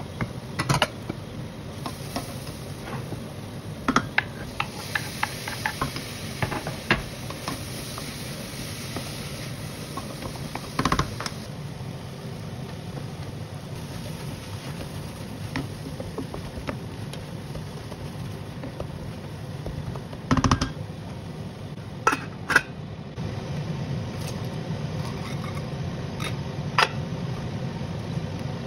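Food frying in a stainless-steel pot while a spatula stirs and scrapes it, with occasional sharp knocks of the spatula against the pot. The sizzling grows louder about two-thirds of the way through.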